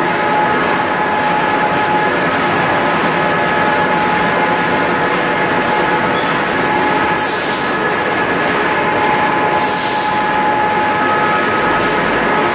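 Wood pellet production line machinery running steadily, a dense mechanical din with several steady whining tones from motors and conveyors. Two short hissing bursts stand out past the middle, a couple of seconds apart.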